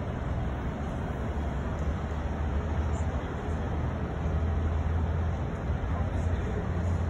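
Steady low rumble of a car heard from inside its cabin, with city street traffic noise around it.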